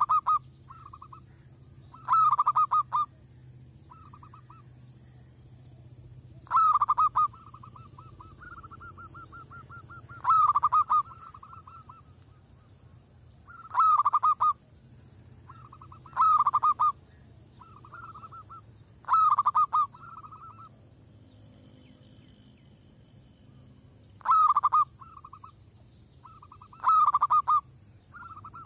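Caged zebra dove (merbok) cooing very close to the microphone: about nine loud, rapid, rippling coos, each under a second and a few seconds apart, with softer stuttering coos in between.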